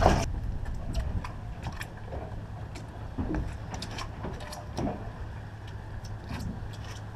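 Fishing boat's engine idling with a steady low hum, under scattered light clicks and knocks of gear on the deck. A loud thump comes right at the start.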